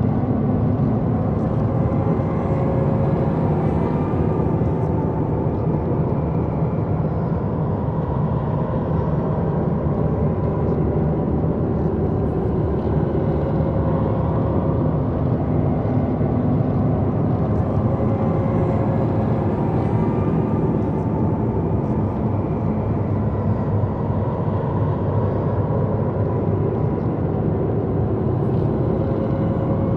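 Dark horror ambience: a steady, dense low rumbling drone with faint, slowly wavering tones drifting above it.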